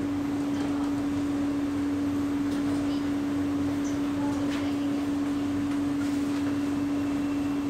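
Steady running noise inside an SMRT C151A train carriage, with a constant hum at one pitch throughout.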